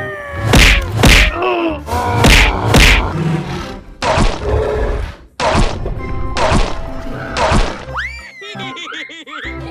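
Cartoon sound effects over background music: a series of about eight heavy thuds and whacks roughly a second apart, then a quick run of swooping whistle-like glides near the end.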